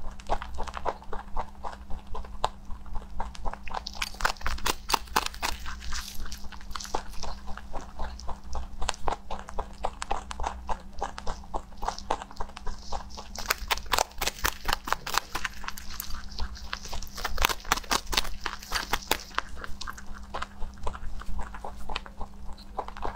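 A rabbit crunching and chewing a compressed green hay cube, in rapid rhythmic clicks several times a second, with two longer spells of sharper crunching, a few seconds in and again past the middle. A steady low hum runs underneath.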